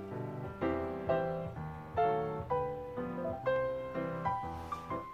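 Background music: a gentle piano melody, single notes struck about twice a second and each ringing away.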